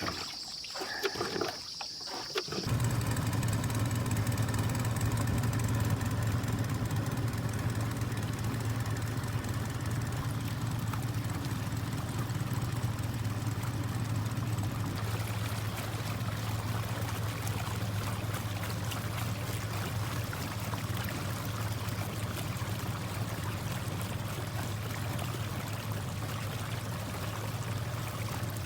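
A boat's engine running at a steady pace with water rushing along the hull. The sound starts abruptly about three seconds in.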